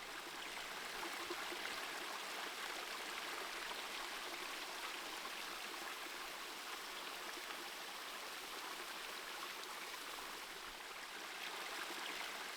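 Waterfall's running water: a steady, even rush with no breaks.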